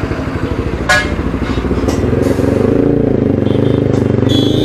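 TVS Apache 4V motorcycle's single-cylinder engine, fitted with an aftermarket exhaust, running under the rider; its note rises from about two seconds in as the bike picks up speed. A short sharp sound about a second in.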